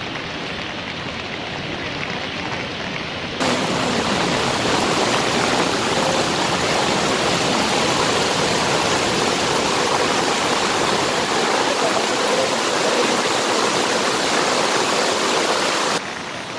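Steady rush of fast-flowing floodwater. It gets louder and brighter about three seconds in and falls back just before the end.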